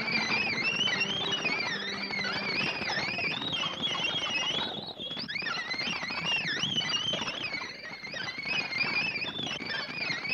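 High, wavering warble from a cartoon music score: a tone and its octave above wobble up and down several times a second over a hissy background, with a brief dip about five seconds in.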